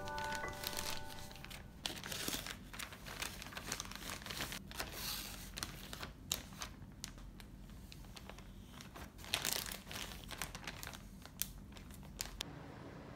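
Clear zip-top plastic bag crinkling and rustling as paper-towel-wrapped peaches are packed into it by hand, with irregular sharp crackles and a louder flurry about two-thirds of the way through.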